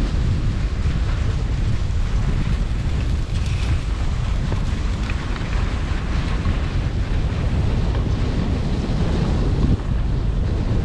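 Wind rushing and buffeting over a skier's camera microphone while skiing a groomed run, with the skis hissing and scraping over packed snow underneath. It is steady and loud throughout.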